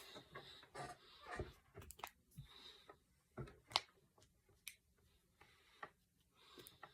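Finger and knuckle joints cracking: a handful of separate sharp pops spread a second or so apart, the loudest a little under four seconds in, with soft breathing between.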